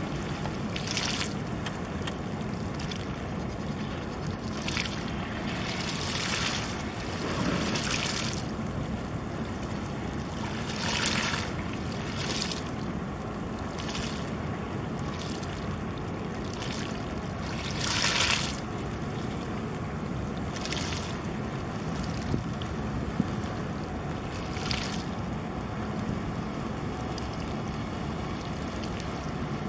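Harbour waterside ambience: a steady low rumble with wind, broken every few seconds by short hissing splashes of small waves.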